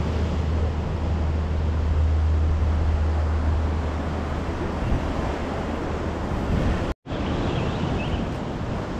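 Wind buffeting the microphone with a low rumble over the wash of ocean surf against the rocks. The rumble stops at a brief break about seven seconds in, leaving the steady surf.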